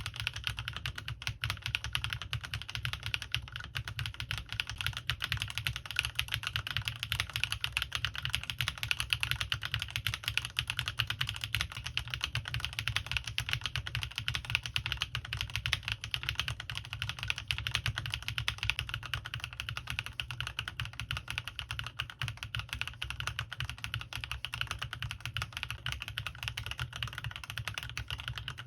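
Continuous fast typing on a CannonKeys Rekt1800 mechanical keyboard with lubed linear switches and thick PBT keycaps: a dense stream of clacky keystrokes over a deep thock from the foam-dampened, force-break-modded case. The switch type changes every few seconds as the test moves through several linear switches in turn.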